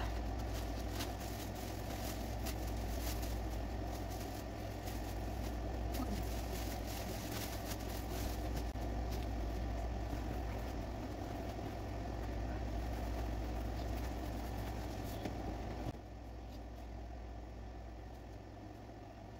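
A steady low mechanical hum with a faint rushing haze above it. It drops in level about sixteen seconds in.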